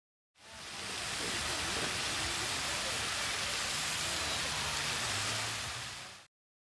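Lake fountain's tall water jet and sprays falling back onto the water, a steady rushing hiss like heavy rain. It fades in about half a second in and fades out shortly before the end.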